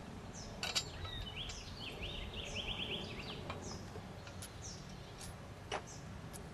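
Birds chirping outdoors, with a quick trill of rapid rising notes early on, over a low steady background noise. Two sharp clicks, one under a second in and one near the end.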